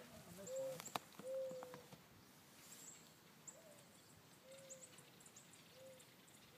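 Dove cooing: a series of soft, low hooting notes, the first of each group sliding up and then down, the rest held and falling slightly. A sharp click about a second in, and faint high bird chirps.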